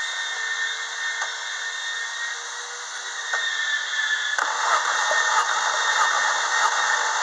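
Opel Corsa D 1.2 16V petrol engine turning over on its starter motor during a compression test, a steady mechanical whirr that grows louder and fuller about four and a half seconds in.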